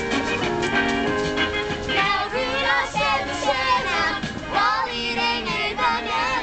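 A Christmas song with a backing track: an instrumental stretch, then high children's voices singing from about two seconds in.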